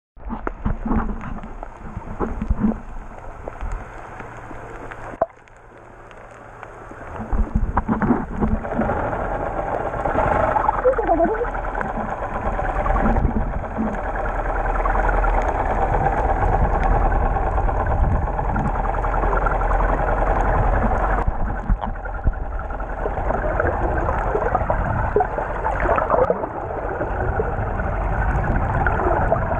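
Muffled water sloshing and rushing against a GoPro in its waterproof housing underwater, with sharp splashy clicks in the first few seconds near the surface; it drops away briefly and then settles into a steady, louder rush.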